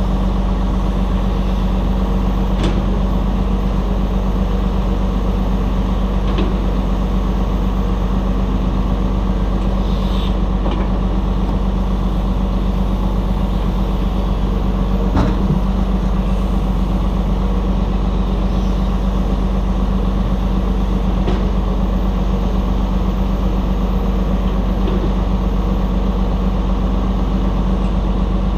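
Steady diesel drone of heavy equipment, a Volvo A35 articulated dump truck and a Cat 323 excavator, running as the truck is loaded with clay. A few short knocks and thuds come through it, the loudest about 15 seconds in, as a bucket of clay is dropped into the truck's steel bed.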